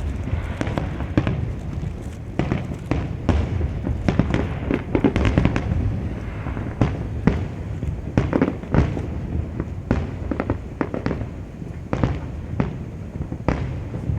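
Fireworks show: aerial shells bursting with many sharp bangs at irregular intervals, some in rapid clusters, over a steady low rumble.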